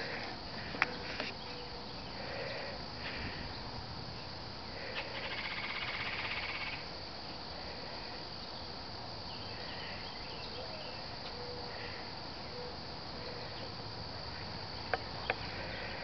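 Outdoor insects calling in a steady high chorus, with a louder rasping insect buzz for about two seconds in the middle. A sharp click about a second in and a couple more near the end.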